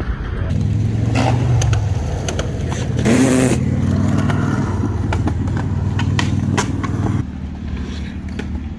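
Motor vehicle engine running steadily, with a short louder noisy stretch and a brief rise in pitch about three seconds in.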